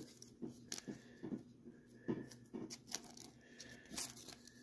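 Faint, irregular clicks and soft taps of cardboard basketball cards being handled and shuffled between the hands.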